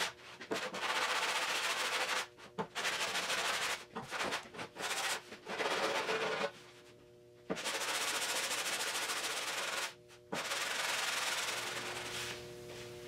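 Long hand sanding block with sticky-back sandpaper rubbed back and forth over body filler on a Triumph GT6's steel hatch. The strokes come in runs broken by short gaps, with a pause of about a second near the middle.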